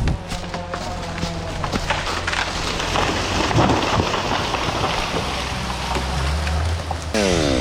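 Wood cracking and splintering with a dense crackle of breaking branches, over the steady low running of an engine. Near the end an engine's pitch falls quickly.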